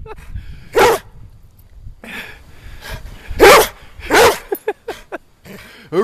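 Yellow Labrador retriever barking: three loud barks, one about a second in and two close together past the middle, with quieter sounds in between.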